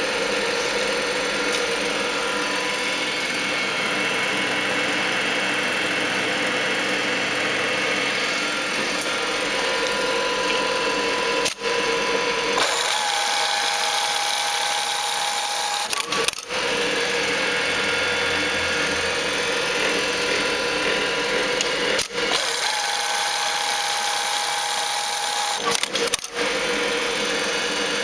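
Pfaff 3338 industrial bartack sewing machine running, a steady mechanical whir of its motor and stitching mechanism. Twice the sound turns thinner and higher for about three seconds.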